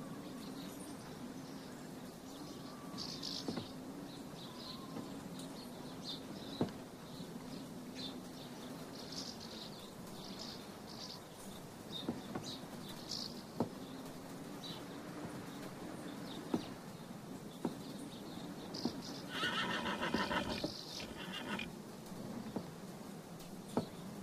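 A horse whinnies about nineteen seconds in, a pitched call lasting about two seconds with a short second part. Around it is a faint, hushed background with scattered high chirps and a few sharp knocks.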